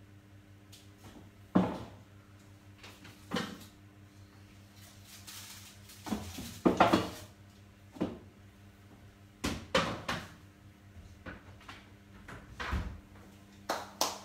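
A series of knocks and clunks from kitchen cupboard doors being opened and shut and things being put away, the loudest about one and a half seconds in and again around seven seconds, over a faint steady hum.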